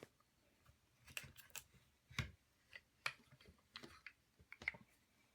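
Faint, irregular light clicks and small knocks of toy pieces being handled as the strap comes off a toy logging truck and its logs are unloaded.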